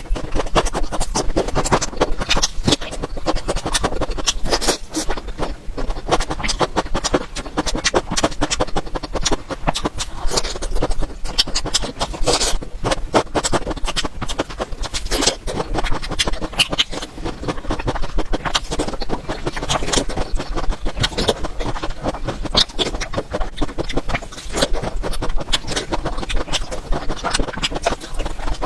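Close-miked chewing and crunching of food, a dense, irregular run of crisp clicks and crackles.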